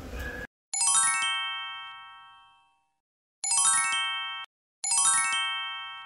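A chime jingle: a quick run of bright, bell-like notes that rings and fades away, played three times, about a second in, near three and a half seconds, and near five seconds. Before it, a brief honeybee hum cuts off.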